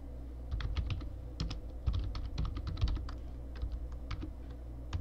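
Typing on a computer keyboard: quick runs of key clicks, densest in the first three seconds and thinning to a few separate key presses toward the end.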